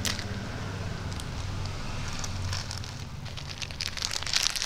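Thin plastic food packet crinkling as it is handled, in a few crackly bursts about two seconds in and again near the end, the loudest at the very end. A low hum runs under the first half.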